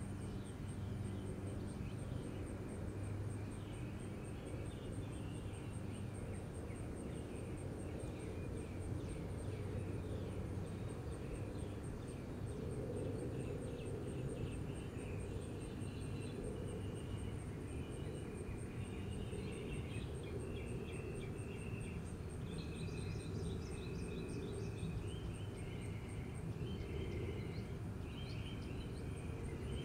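Backyard ambience: birds chirping and calling in short phrases, more often in the second half, over a steady low rumble and a faint, high, even insect trill.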